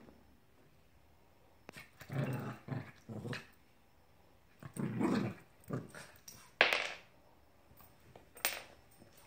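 Small dog growling in short, rough bursts, about three times, while it plays with a plush toy. Two sharp, brief noises follow near the end; the first of them is the loudest moment.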